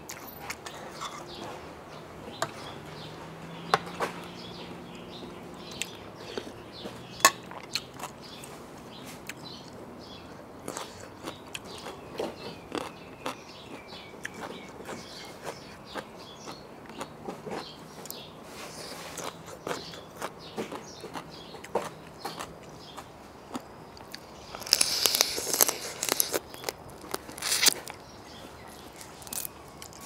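A person eating spicy seafood papaya salad with shrimp, close to a clip-on microphone: chewing and crunching with many scattered small clicks and smacks. A louder, denser run of crunching comes about 25 seconds in.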